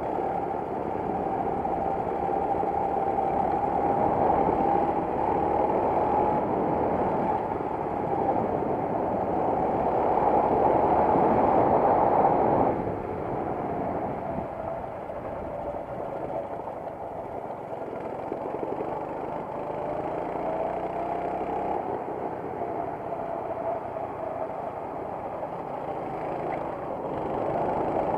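Racing kart engine heard on board at race speed, its pitch rising and falling with the throttle, with wind noise. The engine note climbs to its loudest about twelve seconds in, drops suddenly as the throttle is lifted, then builds again near the end.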